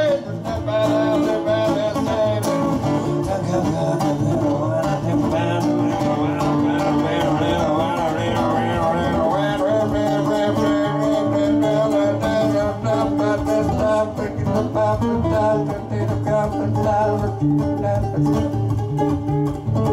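Acoustic guitar strummed in a steady, even rhythm: an instrumental passage between the sung lines of a song.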